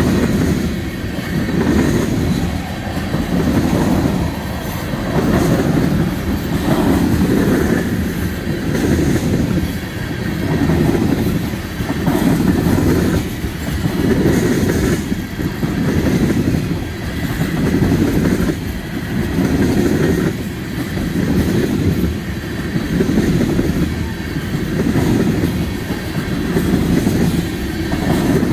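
Freight train tank cars rolling past close by: a steady rumble of steel wheels on rail that swells about every second and a half as each car's wheel trucks go by.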